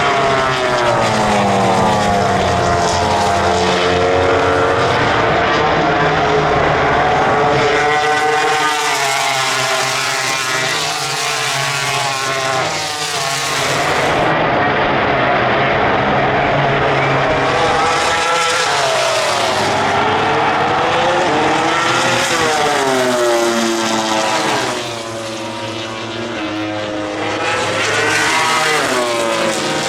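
MotoGP race bikes' four-cylinder engines passing one after another at full race pace: the engine pitch falls as they brake and downshift, then climbs sharply as they accelerate away through the gears, several times over.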